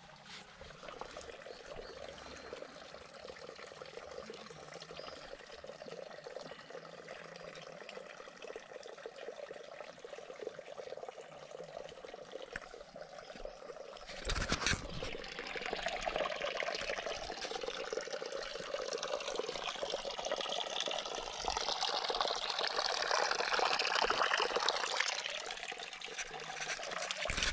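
Water trickling and splashing close by, faint at first and louder from about halfway through, with a single knock about halfway.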